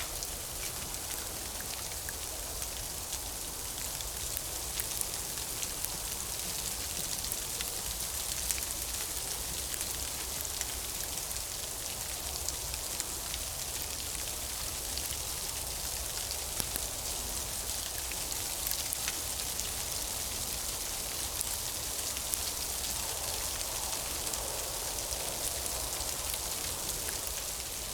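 Steady rain falling, with many small, sharp drop hits over an even hiss.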